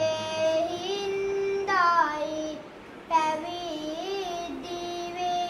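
A young novice monk singing kavi bana, Sinhala Buddhist sermon verses, solo and unaccompanied. The melodic lines are long, with held notes that glide and waver, and there is a short break about halfway through.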